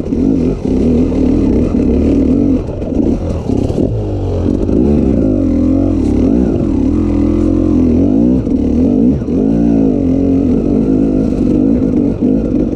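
KTM EXC 300 two-stroke single-cylinder enduro engine revving up and down under load on a dirt trail. Its pitch rises and falls repeatedly as the throttle is worked.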